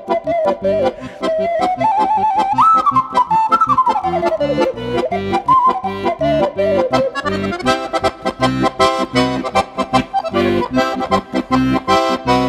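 An ocarina and a piano accordion playing a lively folk tune together: the ocarina's clear, pure melody slides up and down over the accordion's chords, then about halfway through the music turns to a rapid run of short staccato notes.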